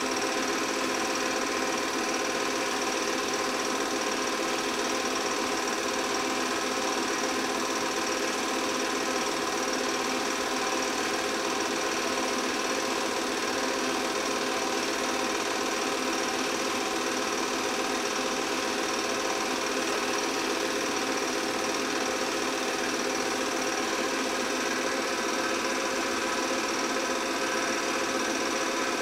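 8 mm film projector running, its motor and film-advance mechanism clattering steadily at an even pace.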